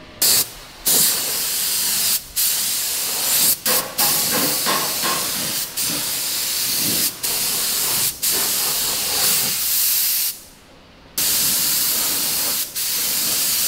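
Compressed-air paint spray gun with a suction-feed cup hissing as paint is sprayed onto a sheet-metal panel. It runs in long bursts as the trigger is pulled and released, with short breaks and one longer pause about ten seconds in.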